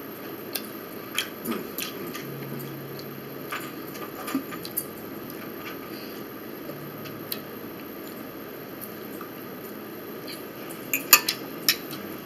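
A metal fork clinking and tapping on a plate: a few light scattered clinks, then a quick cluster of louder clinks about eleven seconds in as the fork is set down and the plate is handled.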